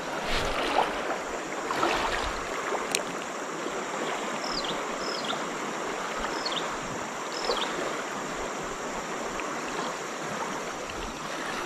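Steady rush of a shallow river running over rapids and riffles. Several short, high chirps falling in pitch sound above it around the middle.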